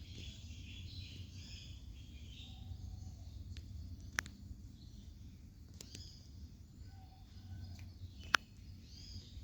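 Kittens purring, a steady low rumble. Birds chirp in the background, and there are two sharp clicks, about four and eight seconds in.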